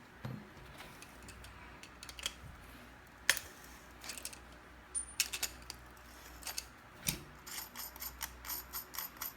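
Small stainless steel faucet parts handled during disassembly: scattered metal clicks and clinks, with one sharp click about three seconds in and a run of quick light ticks near the end.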